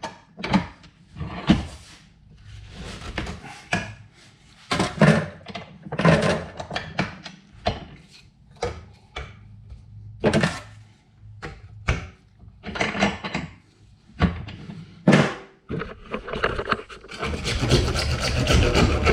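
Scattered knocks and clacks of a plastic PVC pipe and a small handsaw being handled and set up. About two seconds before the end, a handsaw starts cutting steadily through the 3/4-inch PVC pipe.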